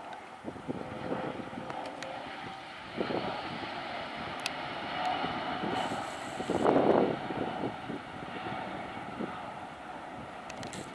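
Airbus A330-900's Rolls-Royce Trent 7000 jet engines at climb power as the airliner pulls away from a touch-and-go, a steady rumbling rush. A couple of louder rushes come through, the loudest about seven seconds in.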